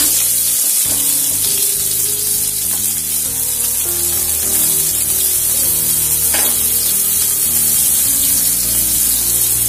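Chopped onions frying in hot oil with spluttering mustard seeds and cumin: a steady sizzling hiss with an occasional sharp pop.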